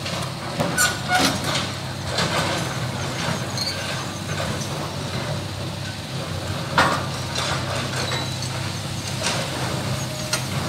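Kubota KX161-3 mini excavator's diesel engine running steadily, with scattered clanks and knocks of broken concrete rubble as the bucket works. The loudest knock comes about two-thirds of the way through.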